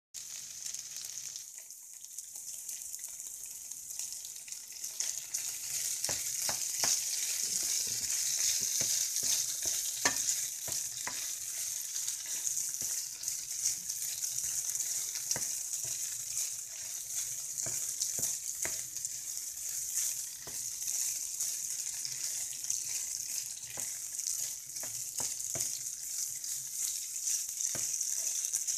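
Diced chicken frying in a nonstick pan: a steady sizzle that grows louder about five seconds in, with a spatula stirring and clicking against the pan.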